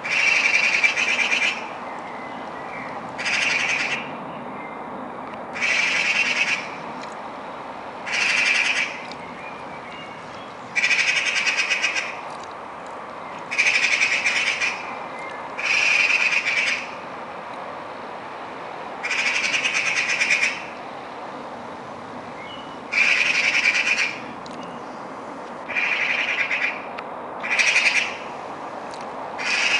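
Eurasian magpie chattering: a harsh, rapid rattle of about a second, given about a dozen times, every two to three seconds. This is the alarm chatter magpies use when mobbing a cat.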